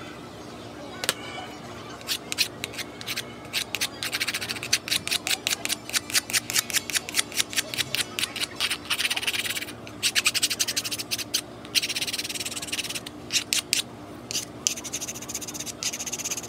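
Edged hand tool scraping and shaving the wood of a carved spoon in short, quick strokes, about four or five a second in runs broken by short pauses.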